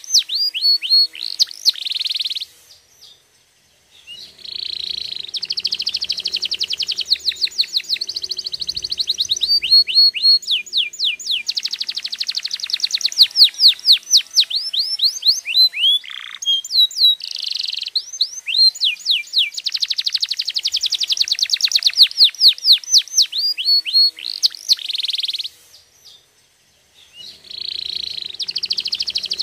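Domestic canary singing long phrases of rapid trills and quick downward-sweeping notes, with two short pauses: one a few seconds in and one near the end.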